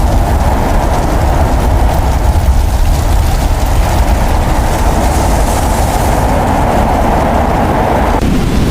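Loud, sustained rumbling sound effect with a heavy low rumble and a noisy hiss, like a continuous explosion or ground-shaking blast. It follows a boom, and its upper rush drops away about eight seconds in.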